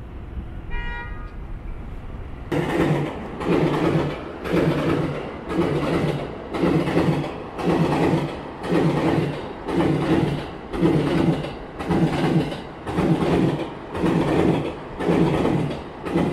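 Tokaido Line E231 series electric commuter train running along the tracks, its rumble and wheel clatter pulsing evenly about twice a second from a few seconds in. Before that there is a brief high tone.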